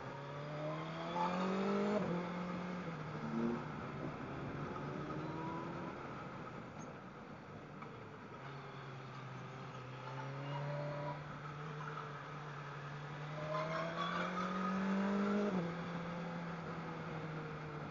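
Motorcycle engine heard from the rider's seat under way, its pitch climbing as it accelerates and then falling away sharply, about 2 s in and again near 15 s in, over steady wind and road noise.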